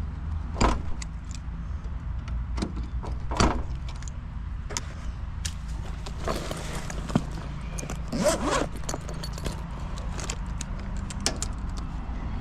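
Scattered short metallic clinks and rattles of hands and tools working on a condenser's capacitor wiring, over a steady low hum.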